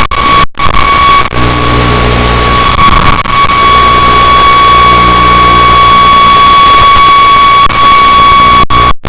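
Loud steady static hiss with a steady high-pitched tone through it, the noise of an analog FPV video link recorded on the goggles' or receiver's DVR. It cuts out completely for an instant about half a second in and again near the end.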